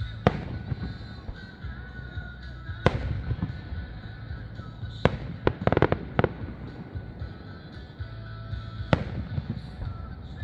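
Aerial fireworks bursting: sharp bangs about a third of a second in, near 3 s and near 5 s, then a quick cluster of bangs and crackling around 6 s and another bang about 9 s in. Music plays steadily underneath.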